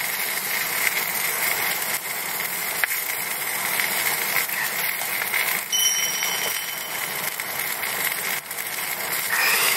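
Sausages sizzling in a steel frying pan over a wood fire: a steady hiss with a few sharp pops, and a brief thin whistle about six seconds in.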